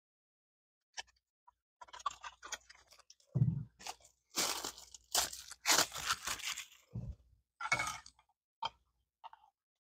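Plastic MRE creamer packet crinkling and rustling as it is handled, in irregular bursts, with a couple of dull knocks.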